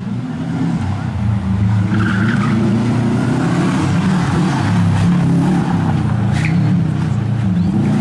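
Subaru Impreza rally car's flat-four engine working hard through a tight section, its revs rising and falling repeatedly as it accelerates and lifts.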